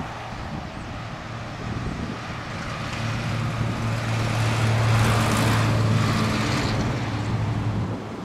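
Jet airliner engines, a steady low hum under a broad rush that swells to its loudest about midway through and then eases off.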